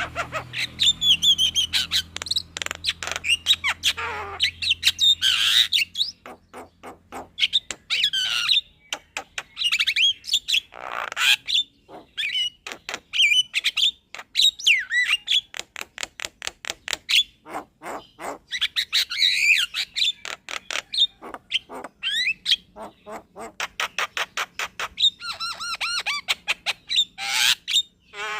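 Javan myna singing a long, varied rolling song: fast runs of clicks and chattering notes mixed with whistles and harsh squawks.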